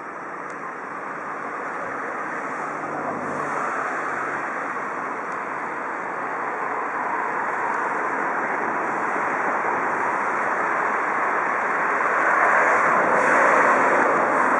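A train moving through the station yard: a steady, rushing rumble that grows gradually louder and is loudest near the end.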